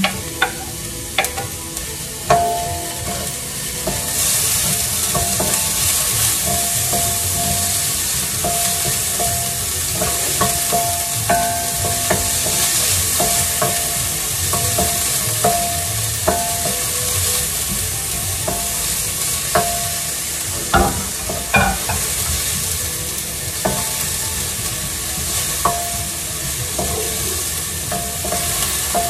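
Diced onion, garlic and ginger sizzling in hot oil in a stainless-steel pan while a wooden spatula stirs them, scraping and now and then knocking against the pan. The sizzle grows louder about four seconds in.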